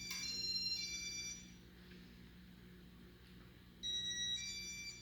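An electronic ringtone: a short melody of high beeping notes changing in pitch, heard twice with a pause of about two seconds between, over a faint steady low hum.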